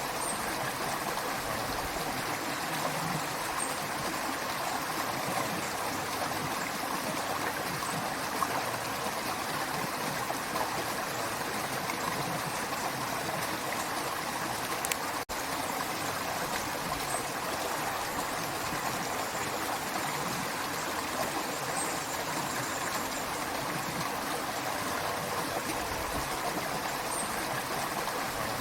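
A running creek: steady rushing and gurgling of flowing water, broken once about halfway by a split-second dropout.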